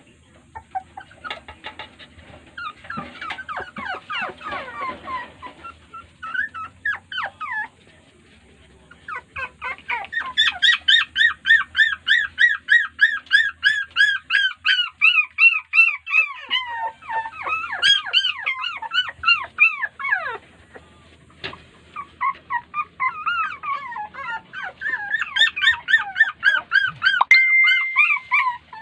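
Young puppies crying: long runs of rapid, high-pitched whining yelps, about three a second, with more than one puppy at once at times. There is a short break about eight seconds in and another lull around twenty-one seconds. They are crying because their mother will not let them nurse.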